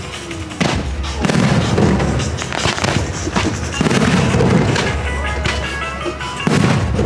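Fireworks shells bursting with sharp booms, several times in a few seconds, over a loud music soundtrack.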